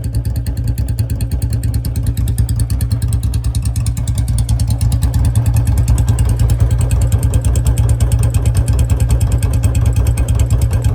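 Two Royal Enfield Bullet single-cylinder engines idling side by side through modified aftermarket silencers, making a fast, even exhaust thump. The newer J-series bike runs at higher revs with a sharper note, while the older one has a slower dugg-dugg beat. The sound grows a little louder over the first few seconds.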